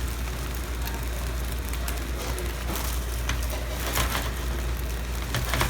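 Egg omelette with vegetables and meat sizzling in clarified butter in a frying pan, a steady crackling hiss over a constant low rumble. In the second half a few sharp clicks and knocks of the pan and utensil join in, the loudest near the end.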